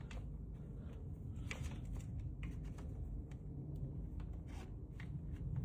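Scattered small clicks and taps of a part being handled and worked into place on a dirt bike by hand, over a steady low hum.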